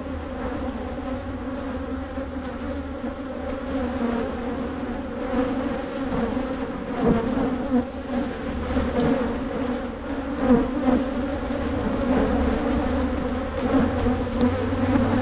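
Many agitated honey bees from an opened hive buzzing loudly around the camera: a dense, wavering hum that swells louder here and there.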